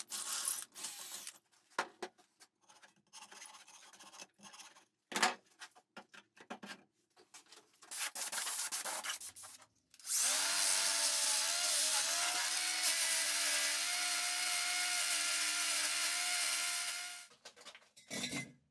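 Cordless angle grinder scraping into an autoclaved aerated concrete block in short, rough stop-start passes. About ten seconds in it runs continuously for some seven seconds with a steady motor whine over the grinding noise, then winds down; one more short burst comes near the end.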